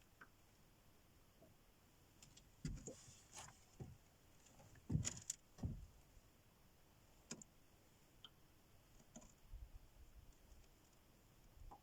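A handful of faint, irregular knocks and clicks over near silence, the loudest pair about five seconds in.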